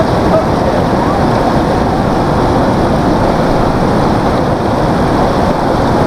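Steady rushing of river water flowing around rocks.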